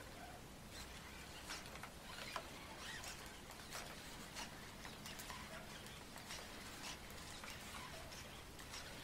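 Sony AIBO ERS-7 robot dog stepping about on carpet: faint, irregular clicks and ticks from its leg servos and paws, with a few brief little whirs, over a low steady hum.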